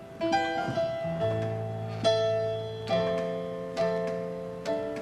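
Piano playing a slow song intro, a chord struck about once a second and left to ring and fade, with low bass notes joining about a second in.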